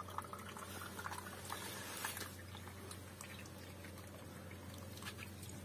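Tea pouring from a thermos flask into a small glass tea glass, a faint trickle with a few light clicks.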